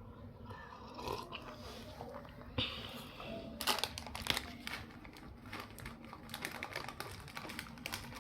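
Crunchy snacks being eaten close to the microphone, with crisp crunching and crinkling that grows into a dense run of sharp crackles a few seconds in.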